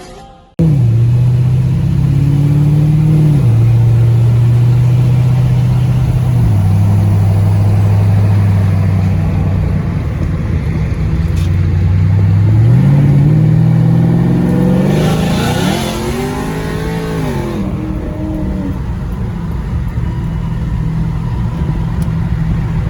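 Car engine running loudly, its pitch stepping down twice and then climbing again, with one rev that rises and falls about two-thirds of the way through before it settles back to a steady run.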